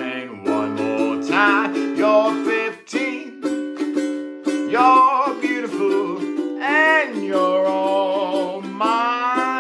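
An acoustic string instrument strummed in steady chords, with a wavering melody line that swoops up and down above it.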